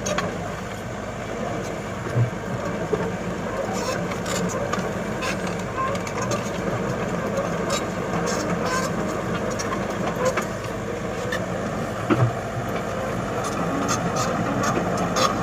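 Komatsu excavator engine running steadily, with scattered short clanks and clicks throughout.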